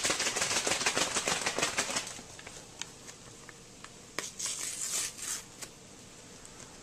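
Wooden spatulas scraping and tossing fried rice in a metal wok: a rapid run of scrapes and rattling grains for about two seconds, a lull, then another burst of stirring about four seconds in.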